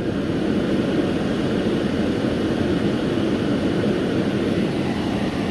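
Climate-control blower fan of a Mercedes GL450 running at high speed with the AC in auto, a steady rush of air over the idling engine.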